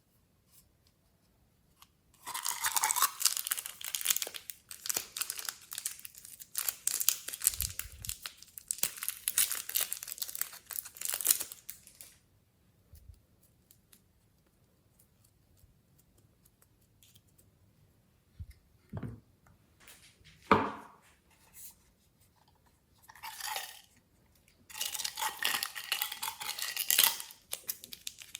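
Glossy slime being squeezed and stretched by hand, giving long spells of dense, crackly popping and tearing sounds. The spells are broken by a quiet stretch with only a few short squelches.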